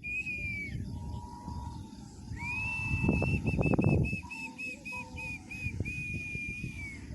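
A high, clear whistle: a short note, then after a pause a long note that breaks into a run of quick short notes, about four a second, and settles into a steady held note again. Low rumbling noise and a few knocks lie underneath.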